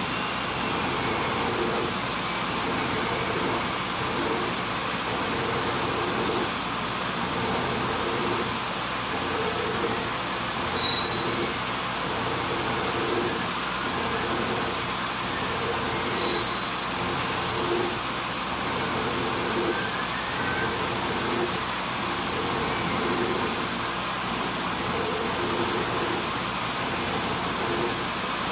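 Vertical milling machine running, its end mill cutting a spiral groove into a steel traverse shaft while the feed is turned by hand. A steady machine whir with a cutting noise that swells and fades every second or two.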